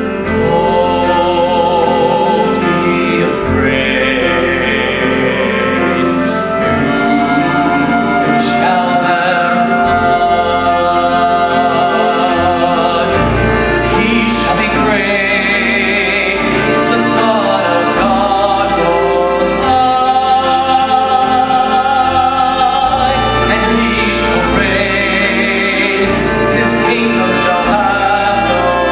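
A man singing a solo ballad with vibrato on long held notes, over instrumental accompaniment.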